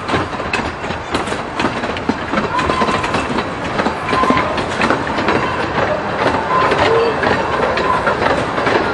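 Amusement-park miniature train running along its track in open carriages, its wheels clattering over the rails with brief squeals now and then.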